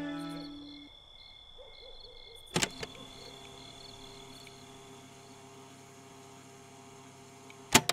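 Violin music dying away in the first second, then a quiet ambience of low hooting calls and faint, evenly repeated high chirps over a steady hum. Two sharp double clicks break in, one about two and a half seconds in and one near the end.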